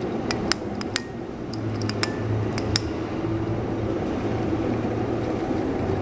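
Ceiling-fan Bedini SG monopole pulse motor running steadily on about 5 volts DC, with a low hum. A handful of sharp ticks come in the first three seconds.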